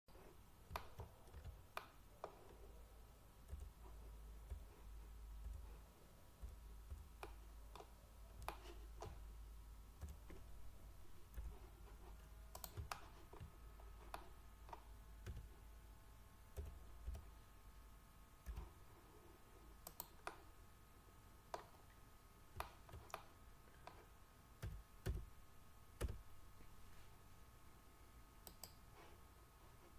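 Irregular computer mouse and keyboard clicks, single sharp clicks a second or more apart, over a faint low hum; a faint steady whine comes in about halfway through.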